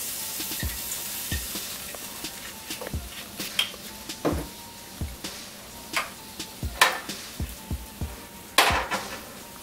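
Minced garlic sizzling in a frying pan just after red wine vinegar is poured in, the hiss strongest in the first second or two and then thinning. Scattered knocks and clicks of the pan and utensils, the loudest near seven and eight and a half seconds.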